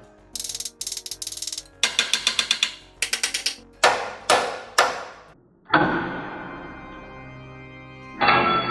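A ratchet wrench clicking in quick runs, tightening a makeshift puller on a frozen suspension bushing, then three ringing metallic knocks. About six seconds in, piano music begins.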